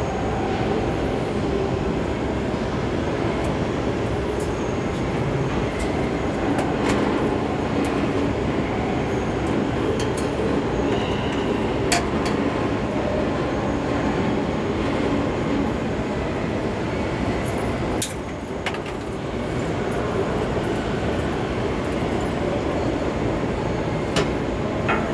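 Steady, loud machinery drone with a few sharp clicks or taps. It drops off briefly about two-thirds of the way through, then returns.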